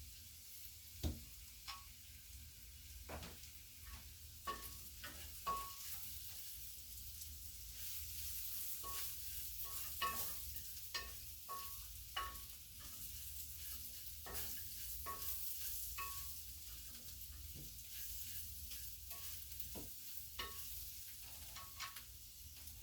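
Green beans stir-frying in a pan with a steady sizzle, while a spatula scrapes and knocks against the pan every second or two, the knocks giving short metallic rings.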